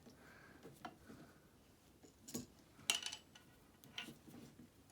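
A few faint, scattered light clicks and taps from the spring drum and draw cord of an Oliver No. 3 typewriter being handled.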